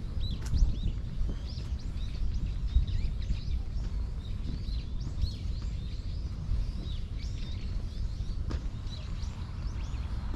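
Many small birds chirping in quick, scattered calls over a steady low rumble, with footsteps on the path.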